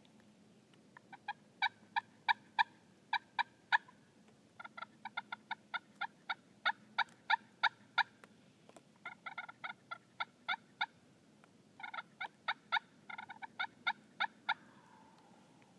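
Several bursts of short, sharp turkey clucks and cutting, rapid notes at about three to five a second. Near the end a distant wild turkey gobble is heard faintly, falling in pitch.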